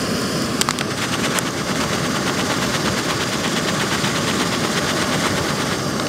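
Foil-lined freeze-dried meal pouch crinkling and crackling as it is handled, densest in the first second and a half, over a steady rushing hiss.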